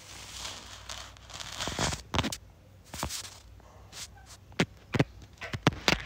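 A rose-ringed parakeet moving and pecking on a hard tile floor: a soft crackling rustle in the first two seconds, then scattered sharp taps and clicks, several in quick succession near the end.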